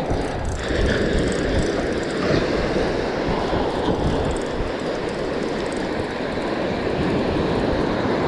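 Steady rush of wind buffeting the microphone, over surf washing onto the beach.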